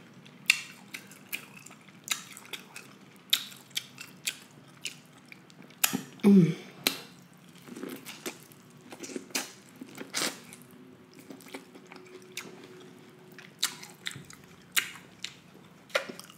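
Close-miked chewing and biting of corn on the cob: a run of short, wet mouth clicks and smacks at irregular intervals, with a louder stretch about six seconds in.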